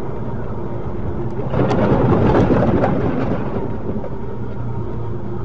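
A vehicle's steady low engine hum and road noise, swelling for a couple of seconds midway, with a few faint clicks.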